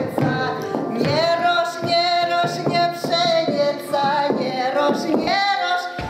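Woman singing a Russian folk song in full voice, holding long, bending notes, with sharp knocks between them.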